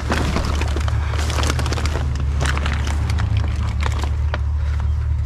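Vehicle engine idling with a steady low hum, with scattered clicks and clatter over it.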